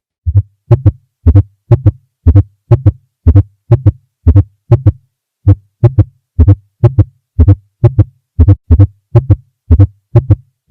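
Recorded heart sounds: a fast, regular train of sharp heartbeats, close to three a second, partly falling into pairs.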